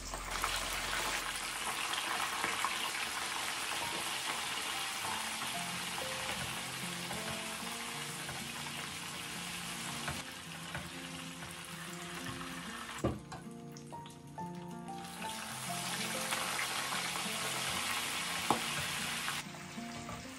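Large shell-on prawns frying in hot oil in a wok, with a steady sizzle. The sizzle falls away briefly about two-thirds through with one sharp knock, then comes back and cuts off just before the end.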